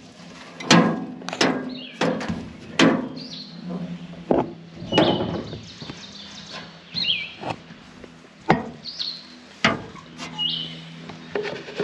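Irregular knocks and clanks of metal parts being handled on an old excavator, about a dozen in all, while a bird chirps about six times. A faint low steady hum runs underneath.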